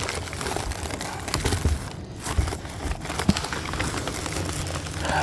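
Rustling and crinkling of packing material as a delivery box is unpacked, with many small scattered clicks.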